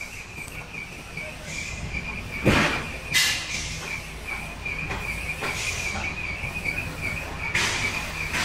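Hydraulic 3-ton SQS100 telescopic boom crane on a truck extending its boom: a steady warbling high whine over a low engine rumble, broken by several short hissing squeals and a thump about two and a half seconds in.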